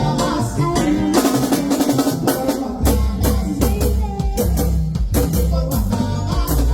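Live band music with drums keeping a steady beat; a deep bass line comes in about three seconds in.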